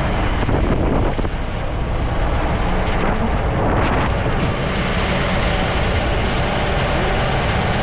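Jeep travelling off-road, heard from inside the cabin: a steady rumble of engine and road noise.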